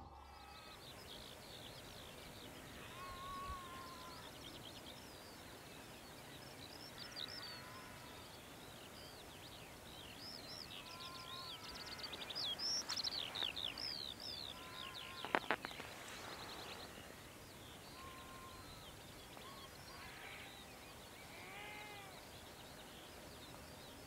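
Faint birdsong over open farmland: several small birds chirping and trilling, busiest around the middle. A lower arched call comes back every few seconds, and a quick cluster of sharp clicks sounds a little after halfway.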